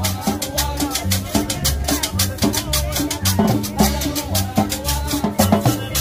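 Live Latin dance music from a street combo band: a quick, steady beat with shaker, bass notes and a melody line.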